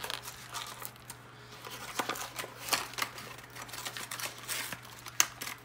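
Plastic blister pack of a Hot Wheels card being pried open by hand: irregular crinkling and cracking clicks, with a sharp snap about five seconds in.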